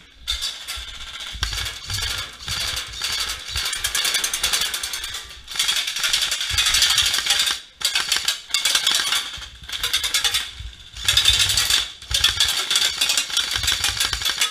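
Airsoft rifle fire: long full-auto bursts, a fast, sharp clicking rattle, broken by a few short pauses.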